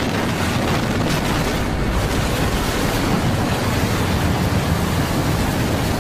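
Tornado winds passing close by, picked up on a handheld camera's microphone: a loud, steady rushing noise with no break.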